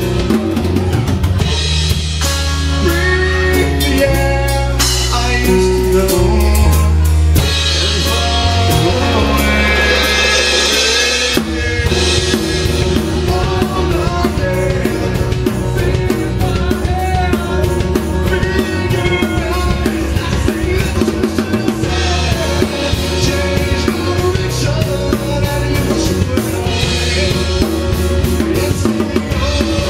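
A live band playing a song: strummed acoustic guitar, electric bass and a drum kit keeping a steady beat under a man's sung lead vocal.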